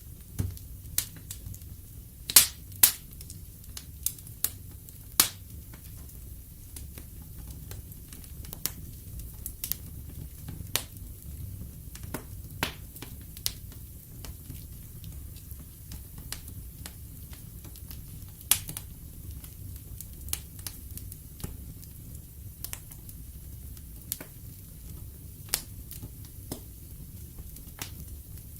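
Wood fire burning in a fireplace: irregular sharp crackles and pops from the burning logs, several loud pops close together a couple of seconds in, over a steady low rumble of the flames.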